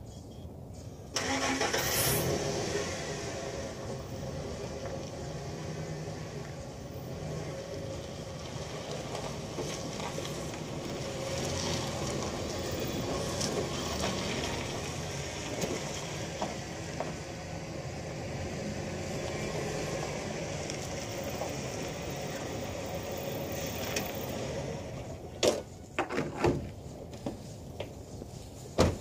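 Pickup truck engine starting about a second in and running steadily as the truck backs up, then stopping shortly before the end. A few sharp metal clanks follow as a loading ramp is set against the dropped tailgate.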